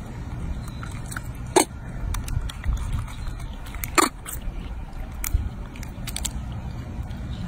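Baby macaque biting and chewing a small piece of fruit, with sharp mouth clicks, the loudest about one and a half and four seconds in, over a steady low rumble.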